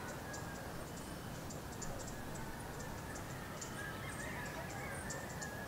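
Outdoor ambience of small birds chirping in quick, short high notes over a steady low background noise, with a faint, longer drawn-out call about four seconds in.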